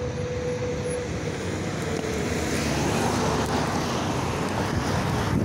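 Wind buffeting a phone's microphone during a bicycle ride, mixed with road traffic noise, growing louder toward the end. A faint steady tone sounds in the first second.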